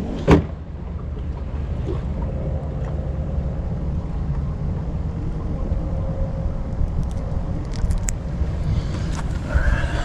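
Steady low wind rumble buffeting a chest-mounted action-camera microphone, with one sharp knock just after the start.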